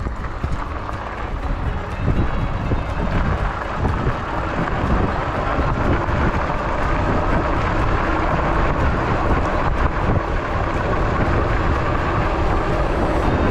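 Wind rushing over the microphone and wide knobby fat tyres rumbling on a gravel dirt road as an electric fat-tire bike rides at speed. The noise is steady and grows a little louder about two seconds in.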